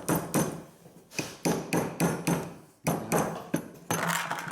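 A dozen or so sharp, irregular knocks, hard strikes like hammer taps on a screw fixing set in an aerated concrete block, as the fixing is tested for firmness. The fixing turns out slightly loose.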